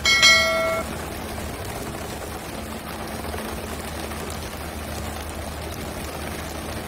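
A short bright chime of a subscribe-button animation sounds about a quarter second in, over steady rushing and splashing sea water and the low hum of a fishing boat's engine.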